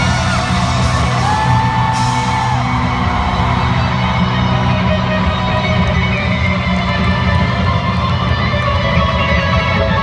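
Electric guitar solo played live through an arena sound system, with long sustained notes bent up into pitch, over the band's steady backing.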